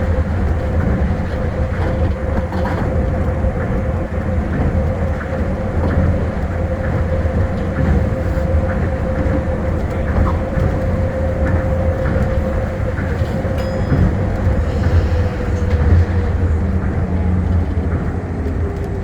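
Tokyo Monorail 1000-series train running: a steady low rumble with a whining tone from the drive, which drops slightly in pitch over the last few seconds.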